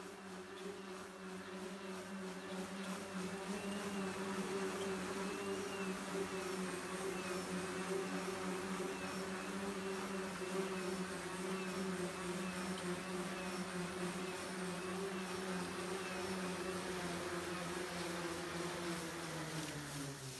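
Levitator 5 electric rotating-wing craft, its wingtip propellers on electric motors buzzing steadily in hover. The buzz grows louder over the first few seconds as the craft comes closer. Near the end it drops in pitch as the craft sets down and the propellers slow.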